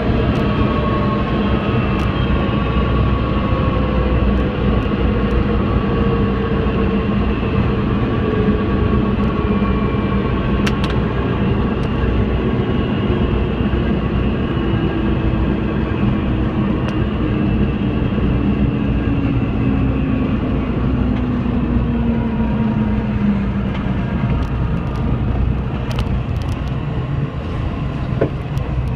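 Diamond DA20 light aircraft's engine and propeller running with a steady drone, its pitch slowly falling throughout as the engine winds down.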